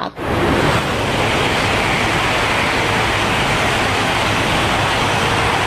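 Shinkansen bullet train rushing past a station platform at speed: a loud, steady rush of wind and wheel noise that cuts in and out abruptly.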